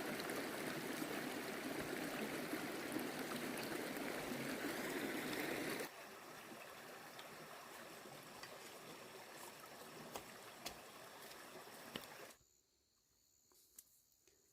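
Steady rushing of water, which cuts abruptly to a quieter level about six seconds in, then drops to near silence with a few faint clicks a little after twelve seconds.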